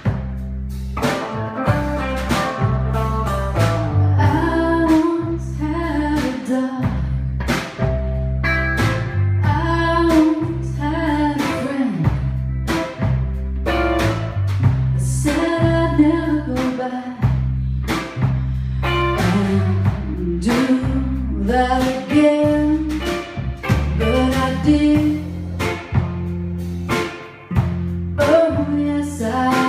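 Live rock band playing: electric guitar, bass guitar and drum kit with a steady beat, and a woman singing lead.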